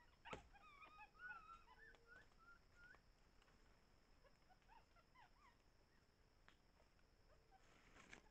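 Faint high chirping and whistled animal calls: a quick run of rising and falling notes over the first three seconds and a few more around five seconds in, with a sharp click near the start.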